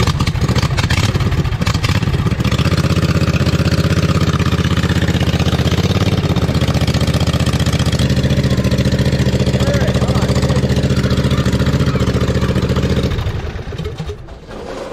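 New Briggs & Stratton V-twin engine on a John Deere Z425 zero-turn mower running on its first test start after an engine swap, with no muffler fitted, so it is a little loud. It runs steadily and is shut off about thirteen seconds in, winding down.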